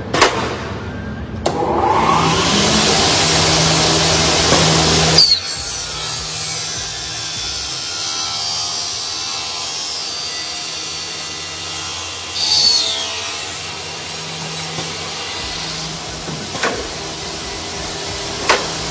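Double-head aluminium cutting saw test-cutting a 2.2 mm thick imported Xingfa aluminium profile. A burst of rushing noise for the first few seconds, then a steady high whine for about ten seconds, with a few short knocks near the end.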